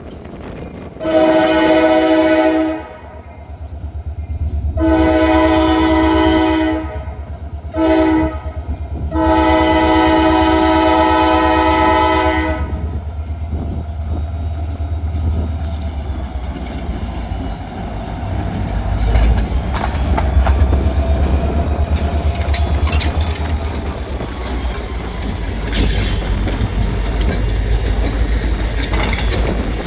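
Freight locomotive's multi-tone air horn sounding the grade-crossing signal: two long blasts, one short, then a final long one. After it, the train rolls past with a steady low rumble and wheels clicking over rail joints.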